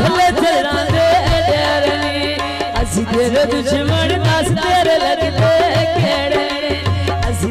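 A high-pitched singing voice with wavering ornaments performs a South Asian folk song through a loud PA sound system, accompanied by hand drums that play steadily throughout.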